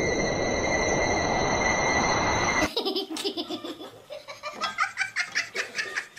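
Tense background music with steady high tones, cut off suddenly about two and a half seconds in, then a person laughing in a quick run of short ha-ha's.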